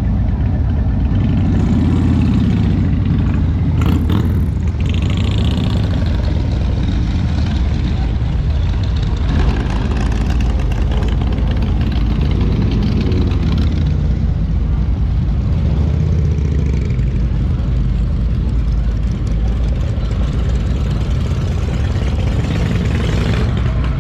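Motorcycle engines running loudly, with the engine pitch rising and falling around two seconds in and again about halfway through as a bike revs.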